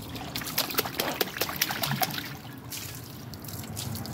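Water splashing and dribbling in a shallow inflatable kiddie pool: a quick, irregular run of small splashes over the first couple of seconds, then calmer.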